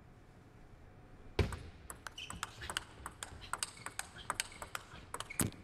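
Table tennis rally: the celluloid-type plastic ball clicks sharply off rackets and the table, about four or five hits a second. It starts with a loud hit about a second and a half in.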